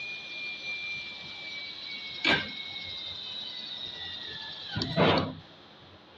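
Electric drill whining steadily as it bores holes through a galvanized steel channel, its pitch sagging slightly under load. There are two sharp, loud clunks, about two seconds in and about five seconds in, and the drill stops with the second.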